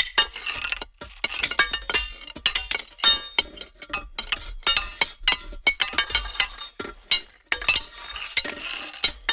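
Metal banging against rocks in quick, irregular blows, each clank leaving a short metallic ring.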